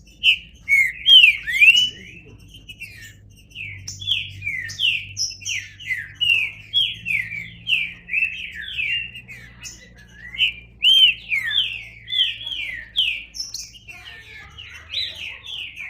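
A green-winged saltator (trinca-ferro) singing: loud, fast phrases of short down-slurred whistled notes, with brief pauses between phrases.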